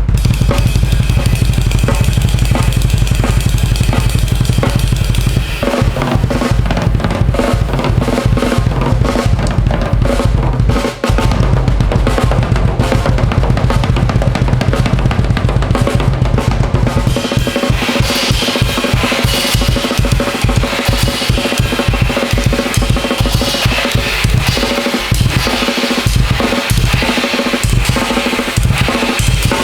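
Drum kit played fast and densely, with bass drum and snare rolls, the strokes brightening with more high-end wash about halfway through.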